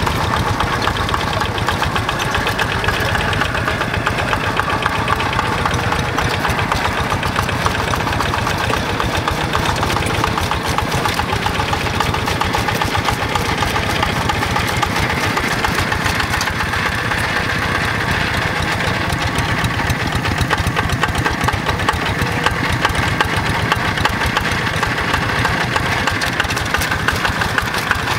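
Single-cylinder Yanmar diesel engine of a Quick G1000 two-wheel hand tractor running steadily under load, its cage wheels and levelling board churning through a flooded rice paddy.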